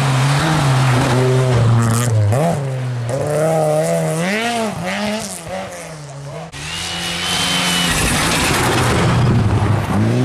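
Rally car engines revving hard on a snowy gravel stage, the pitch rising and falling again and again with gear changes and throttle lifts. About six and a half seconds in the sound cuts to a second rally car, a high steady whine heard for about a second, then its engine builds as it comes close.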